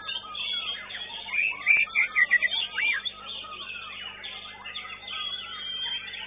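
White-rumped shamas (murai batu) singing at a song contest: a dense, overlapping run of loud whistles, trills and quick chirps, loudest in a burst of sharp whistled notes about two seconds in.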